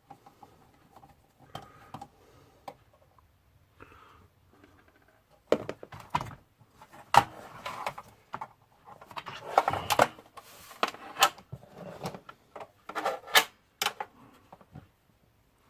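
Clicks, knocks and rattles of computer parts being handled during a teardown. There are only a few light clicks at first, and from about five seconds in it turns into a busy run of sharp clicks and clatter.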